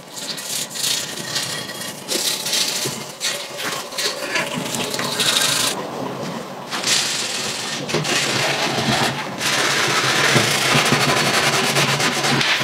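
A bristle paintbrush scrubbing wet liquid over a rusty steel pocket-bike frame, then the green scouring pad of a sponge scrubbing the frame. The strokes are scratchy and uneven, and they get louder and denser in the second half.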